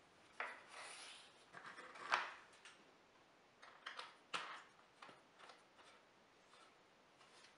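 Small handling sounds of a plywood stop block being fitted on a fence track: a series of sharp clicks and knocks, the loudest about two seconds in, then lighter ticks and rubbing as a washer and nut are set on the threaded stud and turned by hand.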